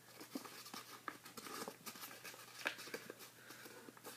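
Sheet of origami paper being handled and folded by hand: faint, irregular paper crackles and soft creasing ticks, one a little louder near the end.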